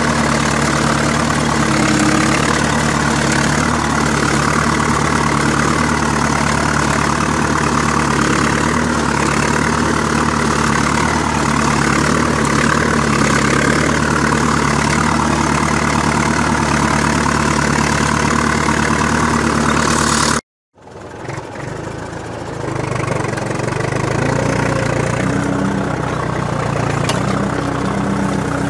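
IMR Rakovica 60 tractor's diesel engine running steadily under load while pulling a plough through the soil. About two-thirds of the way through the sound breaks off for an instant, then returns quieter and builds back up over a couple of seconds.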